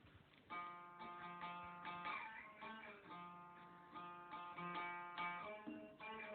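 Homemade one-string diddley bow with a resonator of 10-inch, 30-gauge sheet-metal ductwork being plucked. A run of twangy single-string notes starts about half a second in and repeats through the phrase.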